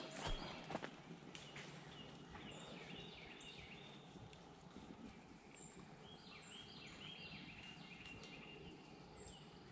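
A pack of beagles baying faintly in the distance, many short overlapping yelps as the hounds run a rabbit's track.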